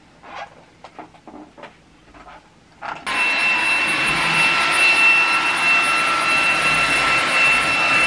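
A few faint taps, then about three seconds in a cordless stick vacuum cleaner switches on suddenly and runs steadily: a rush of air with a high motor whine.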